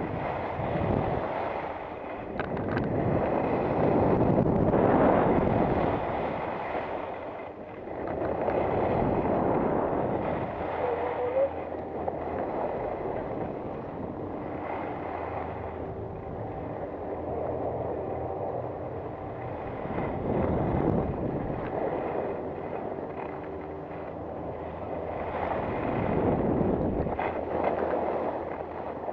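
Wind rushing over the microphone of a camera carried downhill by a skier, swelling and easing in long waves as the speed changes.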